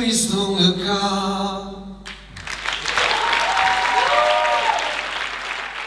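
A man singing the held closing notes of a song with guitar, stopping abruptly about two seconds in. The audience then applauds and cheers, and the applause fades out near the end.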